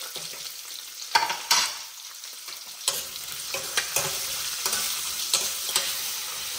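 Sliced onion frying in hot oil in a stainless steel kadai, sizzling, stirred with a steel ladle that scrapes and clinks against the pan. Two sharp knocks a little over a second in; from about three seconds in the sizzle grows steady, with a scrape or clink every half second or so.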